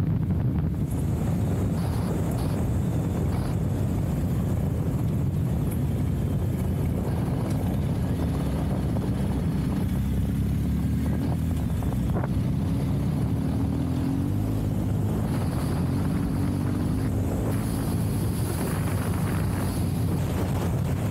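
Motorcycle engine running steadily at cruising speed along a gravel road, with tyre noise from the loose gravel and wind buffeting the microphone.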